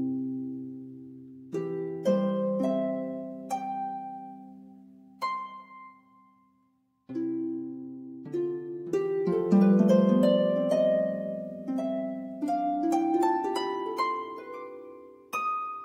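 Background instrumental music of plucked-string notes, each struck and left to ring away, with a short gap about halfway and a quicker run of notes after it.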